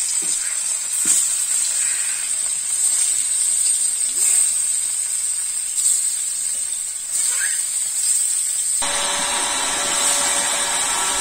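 Catla fish steaks coated in turmeric sizzling as they fry in hot oil in an aluminium karahi, a steady high hiss, with more pieces slid into the oil during the first few seconds.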